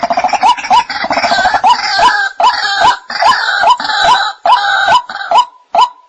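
White-breasted waterhen calling: a steady series of short, upward-hooked notes about two a second, with a denser, harsher croaking run over them that drops out about five and a half seconds in, leaving only the repeated notes.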